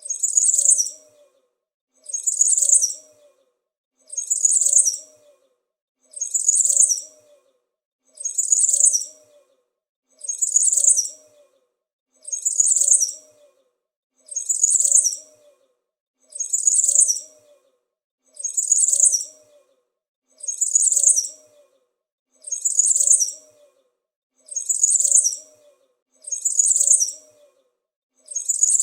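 A small bird's high-pitched chirping, the same short burst of chirps repeated evenly about every two seconds, as a looped sound effect.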